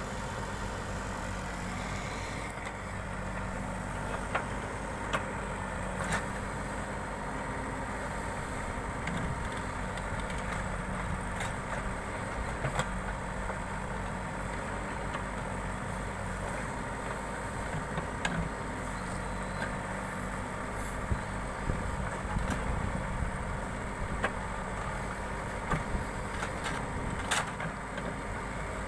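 Backhoe loader's diesel engine running steadily, with scattered sharp knocks and clanks over it.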